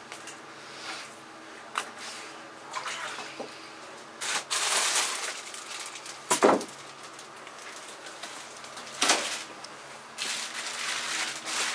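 Fish-kitchen handling noise: short bursts of running tap water and the rustle of a plastic bag as a whole fish is moved, with a sharp knock about six seconds in.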